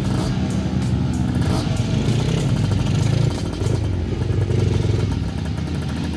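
Dirt bike engine revving in uneven surges under load as the bike is worked through a deep mud rut.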